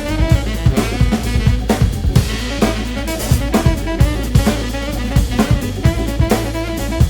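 Music with a drum kit playing a steady beat of kick and snare hits over bass and other pitched instruments.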